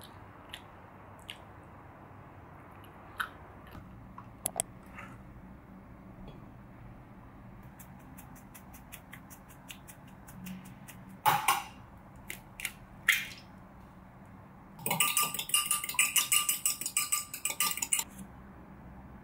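Kitchen knife tapping quickly on a plastic cutting board as garlic is chopped, with a few louder knocks after it. Near the end an egg is beaten briskly in a glass measuring jug, rapid clinking against the glass for about three seconds, the loudest sound here.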